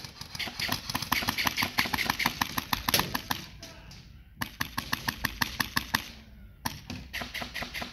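Airsoft rifle firing in rapid strings of shots, about eight to ten a second. The firing stops for about a second some three and a half seconds in, then resumes in shorter strings.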